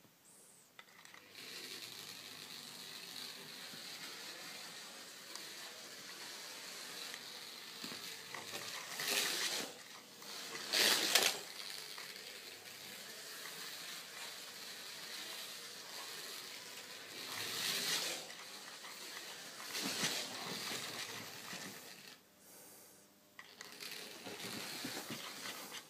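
Scalextric slot car whizzing past along the track several times, each pass a short rising-and-falling rush of noise, the loudest about eleven seconds in, over a steady hiss.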